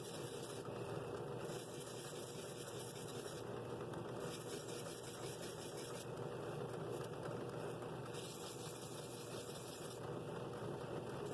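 Drill press running steadily with a sanding drum in its chuck, a wooden bowl held against the spinning drum to sand it. A hiss comes and goes over the steady motor hum every second or two.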